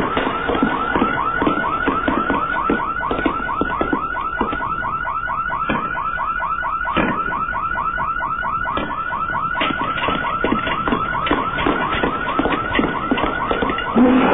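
Electronic alarm warbling: a fast, repeating rising whoop, about five a second, with scattered knocks and clicks underneath.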